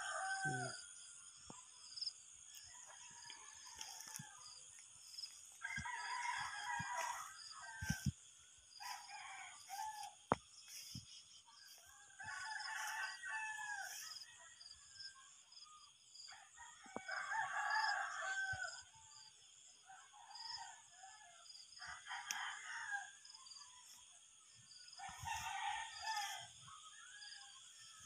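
Roosters crowing again and again, one call every few seconds, over a steady high-pitched hiss.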